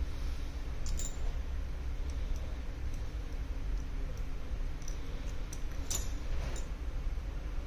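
A few light clicks and ticks of a small screwdriver and a metal cover plate being handled inside an opened iPhone 11 Pro, the sharpest one about six seconds in, over a steady low hum.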